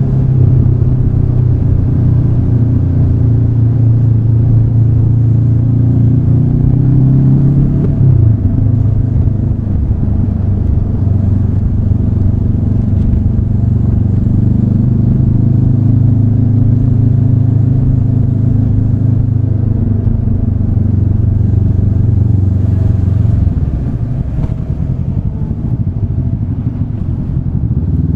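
Honda CB500X's parallel-twin engine running steadily as the motorcycle is ridden at low speed. Its note drops suddenly about a third of the way in, then falls lower and quieter near the end as the bike slows.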